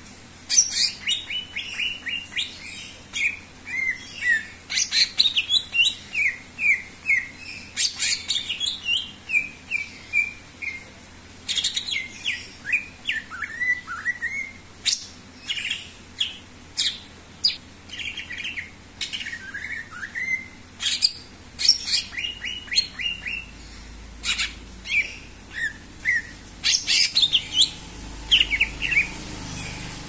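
Caged male leafbird (cucak ijo) singing in full voice: a rapid, varied run of chirps, whistles and falling slurred notes, broken by a few short pauses.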